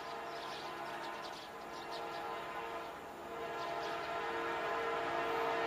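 Norfolk Southern freight locomotive's air horn sounding a steady multi-note chord as the train comes closer, getting louder through the second half.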